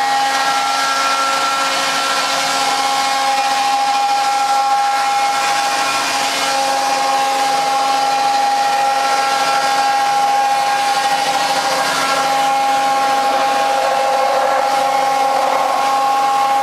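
Electric-motor-driven wood sawdust machine (log crusher) running steadily while it turns wood into sawdust: a constant high whine over a loud rushing noise, with no let-up.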